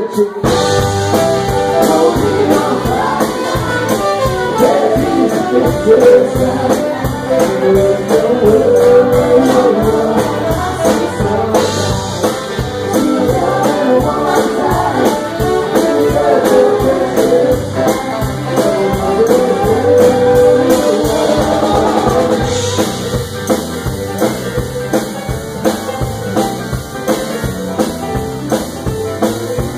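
Live band playing: a singer over a steady drum beat, electric guitar, bass and saxophone. About twenty-two seconds in, the singing drops away and the drums and band carry on.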